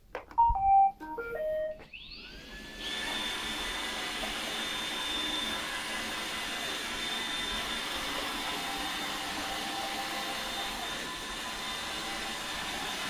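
iRobot Roomba 870 robot vacuum playing its short start-up tune of beeps, then its vacuum and brush motors spinning up with a rising whine and settling into a steady high-pitched whir as it starts cleaning.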